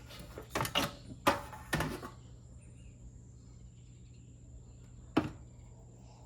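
Knocks and clacks of the ice maker's plastic casing parts being handled and pushed into place: a short run of clatter in the first two seconds, then a single sharp knock about five seconds in, over a steady low hum.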